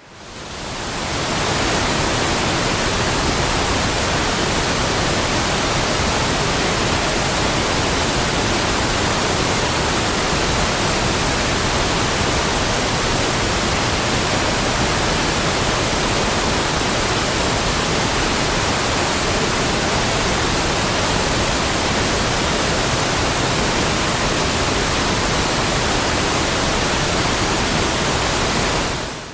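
Waterfall sound effect: a steady, even rush of falling water. It fades in over the first second or so and fades out at the very end.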